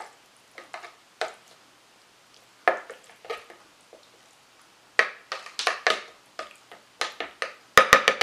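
A metal spoon scraping and tapping as wet dog food is scooped from a plastic tub into a plastic slow-feeder bowl, in short irregular strokes, with a quick run of sharp taps near the end.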